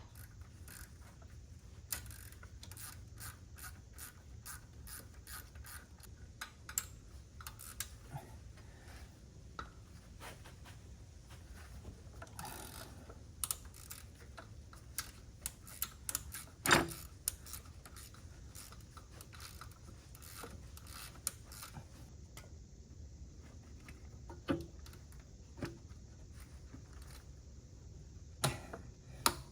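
Hand ratchet wrench clicking in runs as the alternator's mounting bolts are worked loose, with a few metal knocks, the loudest about 17 seconds in.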